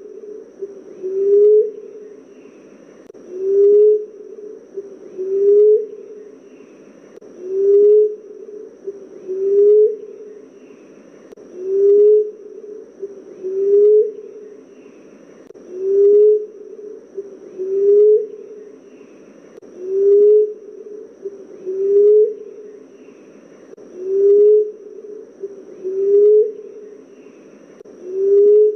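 Common emerald dove cooing: low, soft coos, each rising a little in pitch, about one every two seconds in a steady, even series. A faint steady high tone runs behind them.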